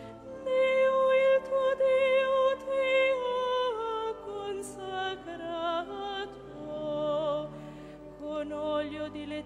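Slow sacred music of held notes: a melody that steps slowly downward about four seconds in over sustained lower notes, then rises and falls with some wavering notes near the end.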